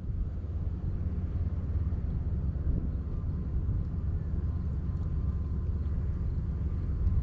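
A steady low rumble with no speech.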